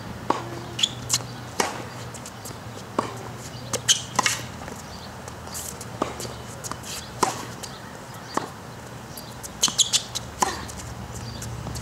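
Tennis rally on a hard court: sharp pops of the ball being struck by rackets and bouncing on the court, a second or two apart, with shoes scuffing between shots.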